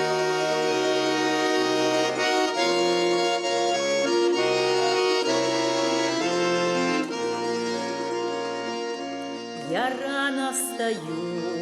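Accordion playing a folk tune: sustained chords over a bass line that steps to a new note every half second or so. The playing softens about two-thirds of the way through, and a brief sliding, wavering sound rises over it shortly before the end.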